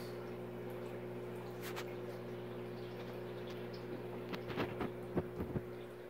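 Steady hum of a home aquarium's filter or pump, with a faint watery hiss. A few short knocks or clicks come over it in the second half.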